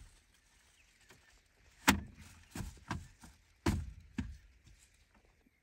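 A short run of dull knocks and thumps, about five between two and four and a half seconds in, the first the loudest.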